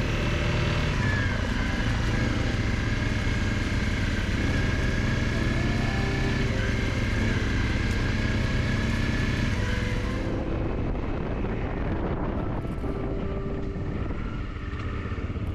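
Motorcycle engine running steadily on the move, with a faint whine over it; most likely the Honda CRF250Rally's single-cylinder engine. The high hiss drops away about ten seconds in.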